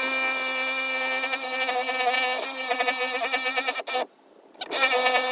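Jigsaw cutting through a boat's floor, its motor running with a steady whine, stopping about four seconds in and starting again half a second later.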